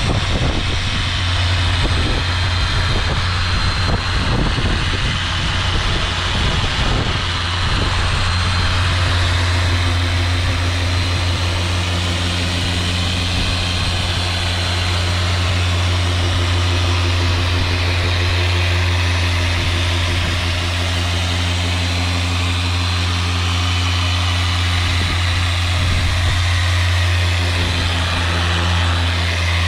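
Handheld electric polisher with a foam pad running steadily on a fiberglass gelcoat boat hull, working polish into the surface with a steady low hum.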